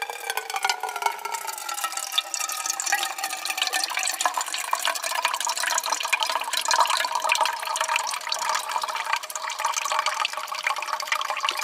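A thin stream of water from a squeeze bottle's filter cap pours steadily into a metal camp mug, splashing as it fills.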